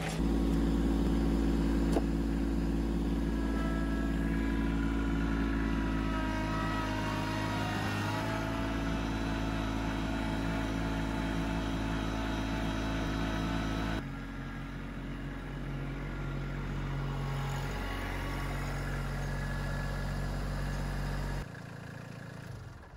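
Kubota LX2610 subcompact tractor's 26-horsepower three-cylinder diesel engine running steadily as the tractor drives, heard from the seat. Higher whining tones glide upward about eight seconds in. The sound steps down in level at about 14 seconds and again near the end.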